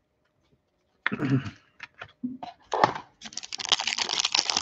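Foil wrapper of a Panini Prizm football card pack being torn open by hand: brief handling noise about a second in, then dense crinkling and crackling of the wrapper from about three seconds in.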